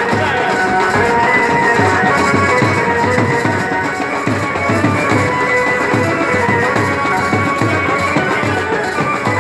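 Music with a steady drum beat and held melodic notes.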